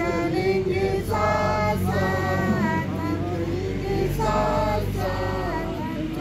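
A small group of men, women and children singing a song together, with long held notes phrase after phrase.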